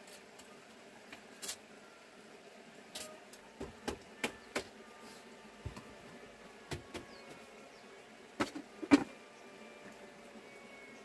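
Scattered knocks and taps of bamboo and wooden slats being handled and set on a small wooden frame, with a louder knock near the end.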